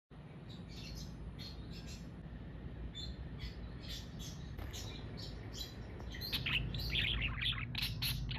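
Budgerigar chirping: a quick run of short, high chirps that gets louder and busier over the last two seconds, over a steady low hum.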